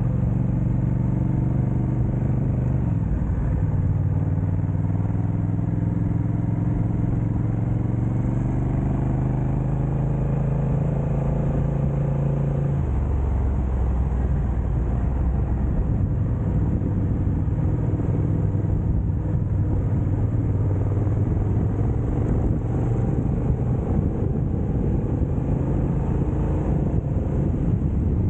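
Motorcycle engine running on the road. Its pitch climbs slowly, drops abruptly about thirteen seconds in, then rises gently again.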